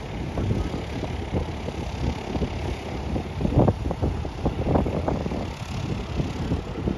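Low, uneven engine rumble, swelling for a couple of seconds around the middle.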